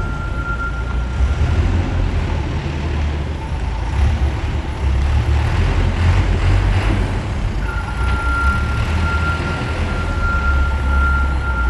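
Caterpillar 420 backhoe loader's diesel engine running loud and steady, with a thin high whine that stops about a second and a half in and comes back about two-thirds of the way through.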